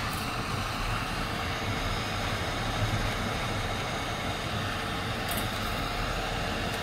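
Hot air rework station blowing at maximum air flow: a steady, even hiss of air.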